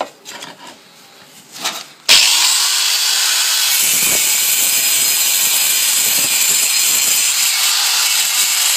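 An 860 W angle grinder with a stone cutting disc switches on suddenly about two seconds in and cuts into a tile, a loud steady grinding hiss. Before it, a few light knocks from handling the tool.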